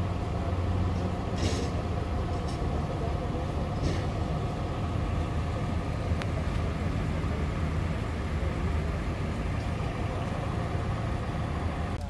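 Cadillac Sedan de Ville's engine idling steadily, a low even hum.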